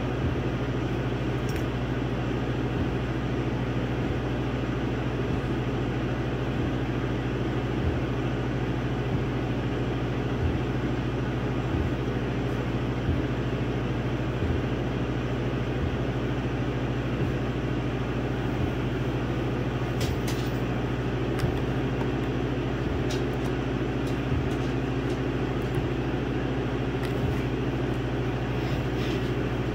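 Laser engraver running while it burns a design into a wooden board: a steady machine hum with a light, regular tick about every second and a half.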